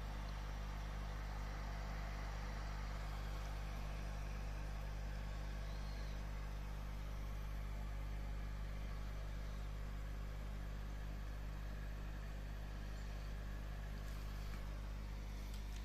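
Steady low electrical hum of aquarium equipment running, with a constant hiss over it.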